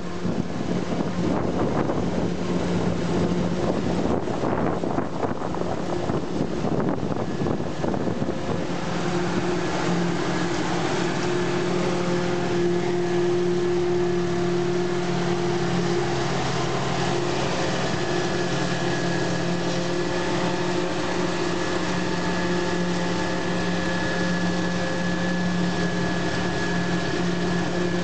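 Claas self-propelled forage harvester chopping maize, with a tractor pulling a trailer alongside: a steady diesel engine drone at an unchanging pitch. For the first several seconds it is mixed with gusting wind noise on the microphone.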